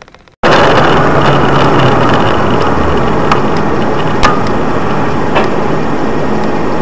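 Loud, steady engine and road noise of a moving vehicle, starting abruptly about half a second in. A few short knocks break through it, the sharpest about four seconds in.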